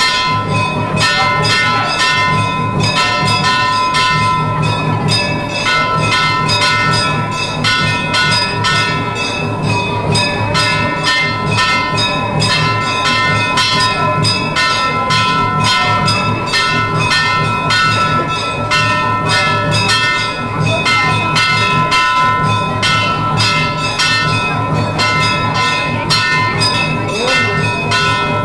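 Temple bells ringing rapidly and continuously during a puja, several strikes a second, with a steady metallic ring over them.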